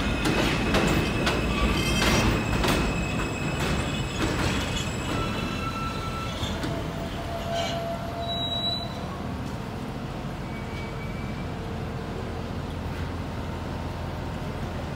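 R160 New York subway train braking into an elevated station, its wheels clattering over the rails with several high squeal tones. The clatter and squeal die away as it slows over the first ten seconds or so, leaving a steady low rumble and hum.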